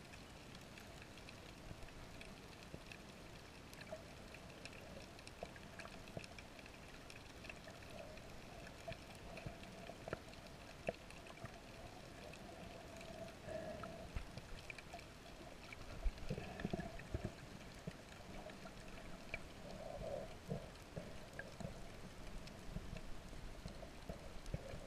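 Underwater sound through a GoPro's waterproof housing: a faint steady hiss and hum with scattered small clicks, and a few louder gurgles of moving water about two-thirds of the way through.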